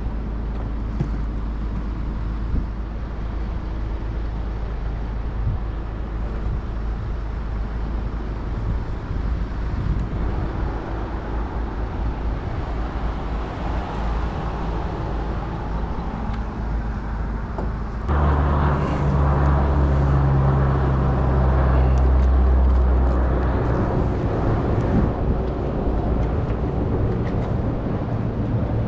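Engine running steadily with a low hum. About 18 seconds in it steps up suddenly to a louder, higher-revving note, then settles back a few seconds later. This fits the work-platform truck's engine being raised to drive the boom hydraulics.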